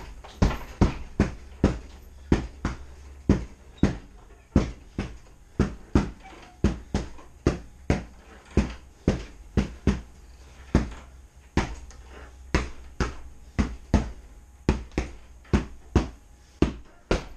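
Repeated strikes landing on a hanging heavy punching bag: sharp thuds, about two to three a second, in short quick combinations.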